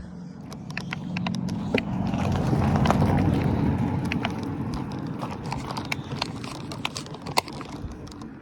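A car passing close along a narrow lane, its low rumble swelling to a peak about three seconds in and then fading away, with many sharp clicks and crunches throughout.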